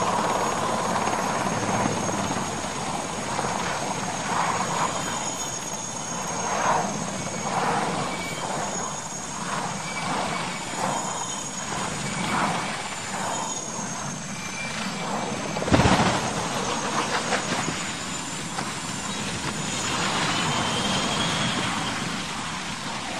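Helicopter rotor and turbine running steadily, with a sudden loud impact about sixteen seconds in as the helicopter crashes.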